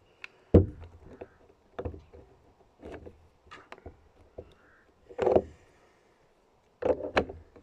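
Irregular knocks and clicks of an impact driver's plastic housing and metal parts being handled and fitted together, with one sharp knock about half a second in and a cluster near the end.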